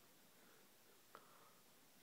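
Near silence: a faint steady hiss, with one small click a little past halfway.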